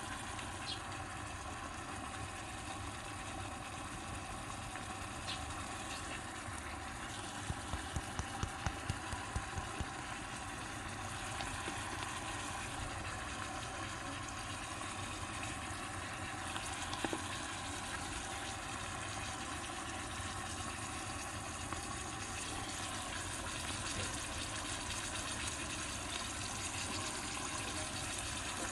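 Stir-fry sauce simmering in a miniature wok: a steady bubbling sizzle, with a run of small pops about eight seconds in.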